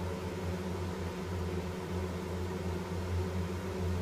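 Steady low mechanical hum of room background noise, even in level throughout.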